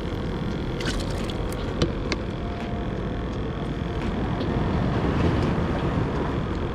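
Steady low outdoor rumble of wind and water, with a few short splashes and clicks between about one and two seconds in as a live mullet is grabbed out of a bait bucket.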